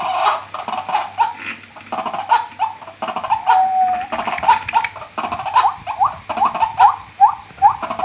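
White-breasted waterhen calling: a run of short upward-sliding notes, with one longer level note about halfway, settling into a quick regular series of about two to three calls a second in the second half.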